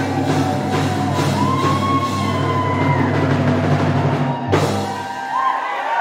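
Band music with a drum kit and a steady bass line under a held melody line. A sharp crash comes about four and a half seconds in, after which the bass drops out.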